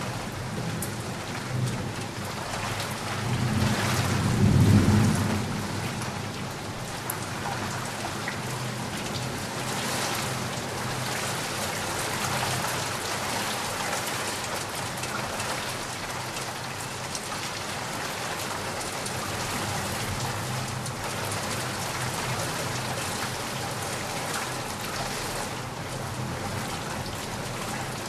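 Heavy rain falling steadily, with a low roll of thunder that swells about three seconds in, is loudest around five seconds, then fades back into the rain.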